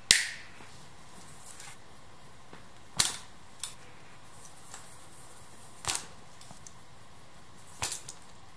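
Four sharp snapping clicks two to three seconds apart, with a few fainter ticks between them, from hand work on electrical wiring.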